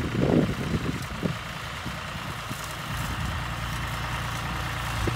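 John Deere tractor engine running steadily as the tractor pulls a planter across the field, a low even drone. A brief muffled voice-like sound comes right at the start.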